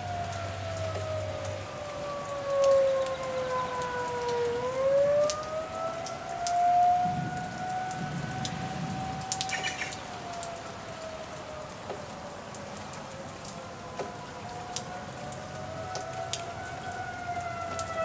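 Outdoor warning siren wailing, its pitch sliding slowly down and back up, over steady rain falling on the trees and grass.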